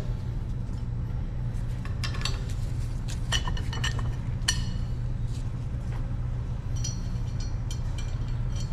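Light metallic clinks and ticks as small nuts and bolts are handled and fitted onto the spider coupling of a fire-hydrant stem. They come scattered, a few about two to four and a half seconds in and a quick cluster near the end, over a steady low hum.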